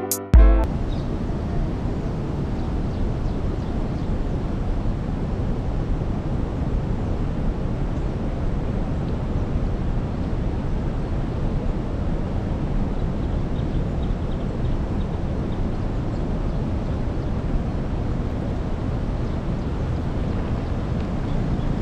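Steady low rumble of wind buffeting the microphone, with no engine note or other distinct sound over it; background music cuts off just after the start.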